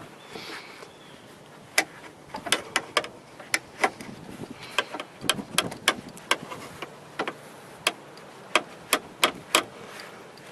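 Irregular sharp metal clicks and knocks, about twenty in all, as a replacement reverse pedal is worked onto its rusty steel shaft on a John Deere garden tractor.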